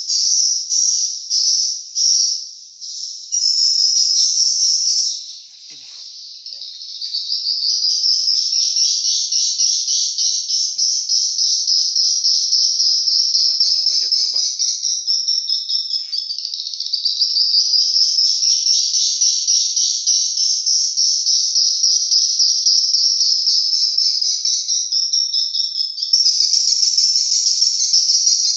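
Edible-nest swiftlet calls: a continuous, high-pitched, rapidly pulsing chirping that drops away briefly about six seconds in.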